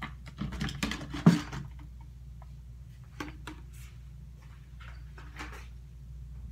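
Knocks, clicks and rustling of things being handled and packed up by hand, the loudest knock just over a second in, then a few light clicks, over a steady low room hum.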